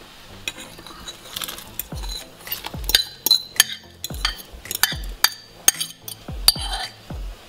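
A metal fork scraping and knocking mashed potatoes out of a ceramic bowl into a steel soup pot. Irregular sharp clinks, a few a second, start about two seconds in.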